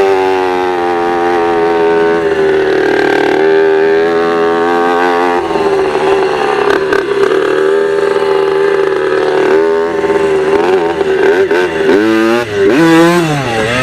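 Dirt bike engine running at a fairly steady pitch, then revving up and down several times near the end.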